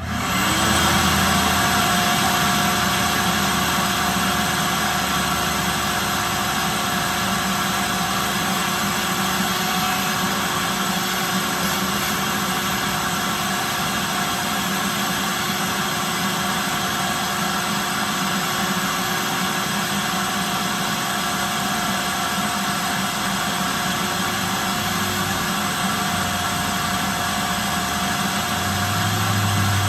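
Corded vacuum cleaner switched on: the motor whines up to speed over about a second, then runs with a steady high hum and rushing air. Near the end a deeper rumble comes in over the hum.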